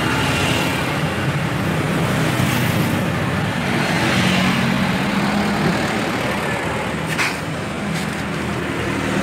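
Steady road traffic noise: passing vehicles' engines and tyres, with one engine louder about four to five seconds in.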